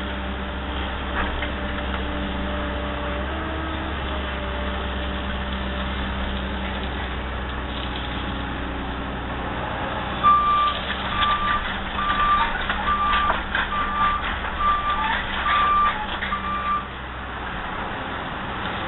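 Excavator diesel engine running steadily. About ten seconds in, a back-up alarm beeps about eight times, a little under a second apart, with knocks and clatter among the beeps; near the end the engine hum drops away.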